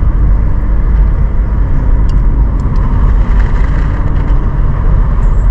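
A car on the move: a loud, steady low rumble of engine and road noise.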